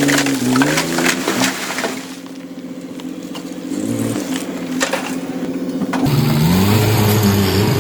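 Heavy diesel earth-moving machinery working, its engine pitch rising and falling under load, with sharp metallic clanks in the first couple of seconds. The engine drops quieter for a moment and then comes back louder near the end.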